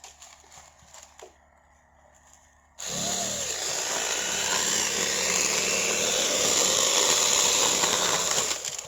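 Electric chainsaw starting up about three seconds in with a quick rising whine, then cutting through wood steadily for about six seconds before stopping near the end.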